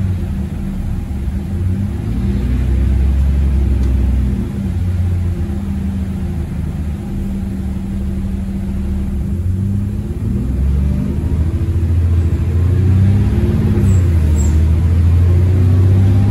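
Diesel bus engine and automatic gearbox heard from inside the lower deck, pulling hard under acceleration with a gear change about four seconds in. About ten seconds in the gearbox kicks down and the engine revs climb, getting louder toward the end.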